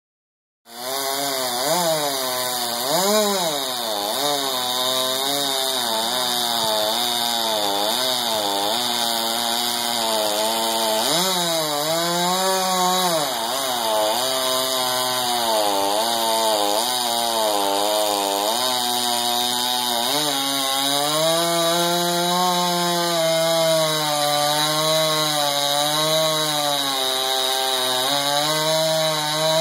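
Chainsaw running and cutting wood, starting just under a second in. Its engine pitch keeps rising and falling as it works through the cut.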